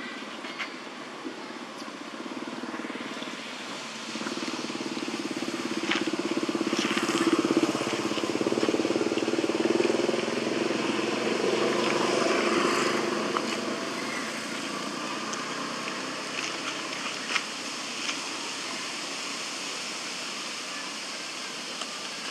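A motor vehicle's engine passing by, growing louder from about four seconds in and fading away after about thirteen seconds, over steady outdoor background noise with a few faint clicks.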